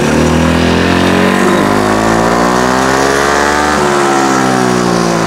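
Yamaha Aerox 155 scooter's single-cylinder engine running through an aftermarket full-system exhaust. It is revved up steadily for about four seconds, then eased back down.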